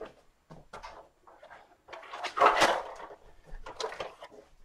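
Off-camera handling noise: a run of scuffs, knocks and rustles as bulky plastic prop parts are moved about on and near a table. The sounds are loudest about halfway through.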